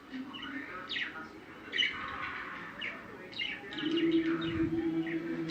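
Small birds chirping, a run of short, quick downward-sweeping calls. A steady low hum comes in about four seconds in.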